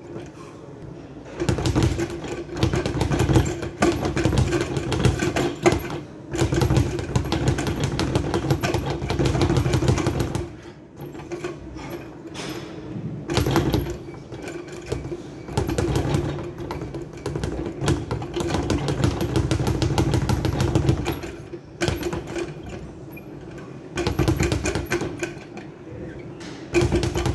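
Speed bag being punched in fast runs, rattling against its wooden rebound platform in a rapid drumming rhythm. The runs come in several stretches of a few seconds each, broken by short pauses.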